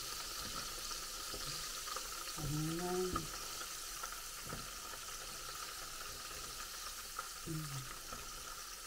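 Battered shrimp tempura deep-frying in a pan of hot oil, a steady sizzle, with a few light clicks of the utensil as the cooked pieces are lifted out.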